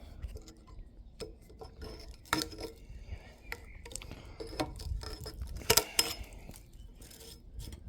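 Metal parts and hand tools clinking and knocking against each other and the workbench as they are handled, in irregular light clicks with a couple of sharper knocks.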